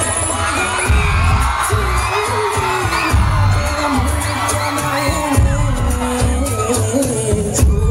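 Loud dance music with a heavy, pulsing bass beat and a wavering melody line above it, dropping out briefly just before the end.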